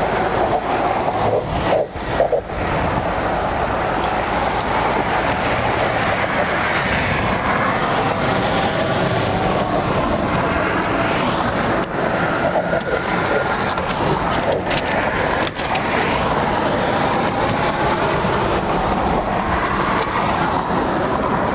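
Steady, loud rush of interstate traffic passing at highway speed, cars and trucks going by close to the shoulder.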